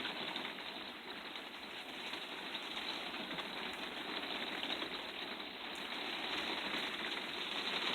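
Rain falling steadily on a motorhome, heard from inside as an even, dense hiss of drops.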